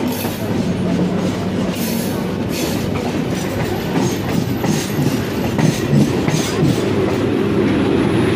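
LHB passenger coaches of the Rajdhani Express running past close by at speed: a steady rumble of steel wheels on rail, with repeated clacks as the wheels cross rail joints.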